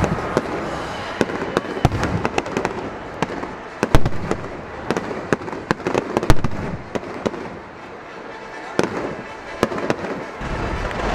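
Aerial fireworks going off in a rapid, irregular string of sharp bangs and crackles, the loudest about four and six seconds in, easing off for a moment near eight seconds.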